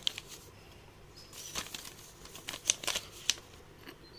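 Paper leaflets rustling and flapping as they are handled and folded, in short irregular crackles, the sharpest few around the middle.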